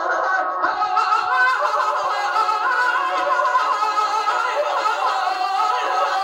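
A man singing into a microphone, long held notes with a wavering, ornamented line. The sound is thin, with no bass.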